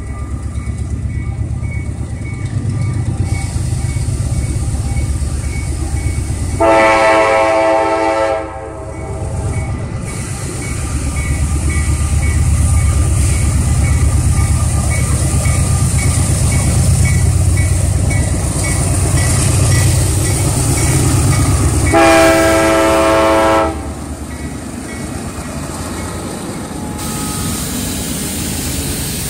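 Diesel freight locomotives, an EMD GP38 lashup, rumbling past while the lead unit sounds its air horn, two long chord blasts about fifteen seconds apart. A faint high ping repeats steadily underneath.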